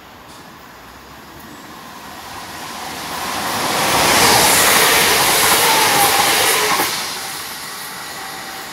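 Great Western Railway diesel multiple unit passing through the station at speed. A rush of engine and wheel-on-rail noise builds over about three seconds, is loudest for around three seconds, then falls away as the train runs off down the line.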